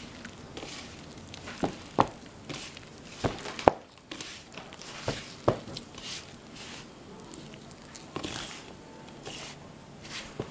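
A hand kneading wheat flour and water into poori dough in a stainless steel bowl: a soft rustle and squish of the crumbly dough, broken by irregular sharp knocks against the steel bowl.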